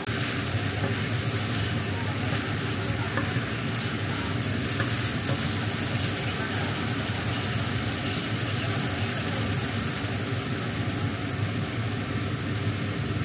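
A small motor runs steadily, a low hum under a constant hiss.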